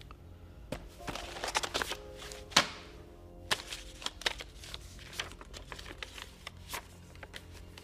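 Papers and photographs rustling and shuffling as they are handled and sorted through in an open briefcase, a string of short rustles and clicks with a sharper snap about two and a half seconds in, over background music.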